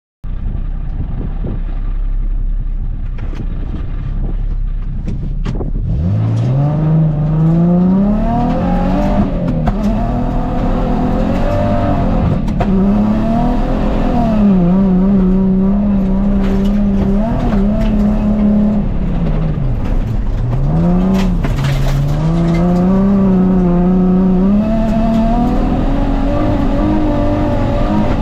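Nissan 350Z rally-converted drift car heard from on board: a steady low rumble, and from about six seconds in the engine revving hard, its pitch climbing, holding, dropping and climbing again several times as it accelerates and lifts through the stage.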